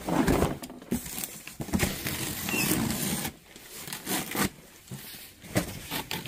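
Large cardboard box scraping and knocking as it is shifted about, and the packing tape on its top being slit with a box cutter, with rustling cardboard.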